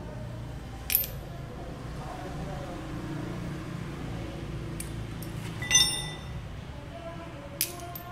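Three sharp metal clinks from tools and parts being handled at a motorcycle engine: one about a second in, a louder one near six seconds that rings briefly, and one near the end. A steady low hum runs underneath.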